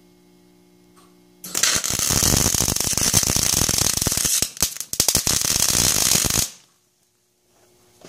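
A stick welder's arc strikes about a second and a half in and crackles and spits for about five seconds, with a brief break partway, then stops abruptly. It is a short tack weld fixing a bolt to a steel plate. A steady low hum is heard before the arc strikes.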